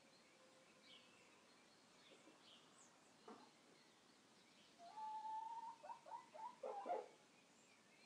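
Faint small birds chirping. About five seconds in, a chicken calls: one held note, then a quick run of short, choppy clucks.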